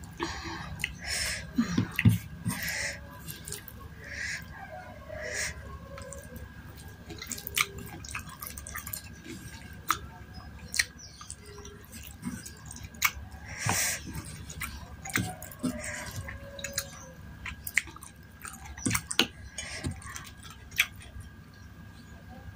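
Close-up wet chewing and mouth sounds of someone eating seblak, soft boiled crackers in spicy sauce, with scattered sharp clicks and scrapes of a wooden spoon in a stone mortar.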